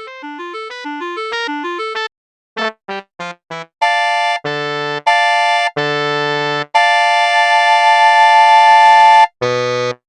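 A wind-sextet piece played back with synthesized instrument sounds, ending. A quick run of short notes on a steady pulse gives way to four short detached chords. Then come longer held chords and one long chord that swells slightly, and a short final chord near the end.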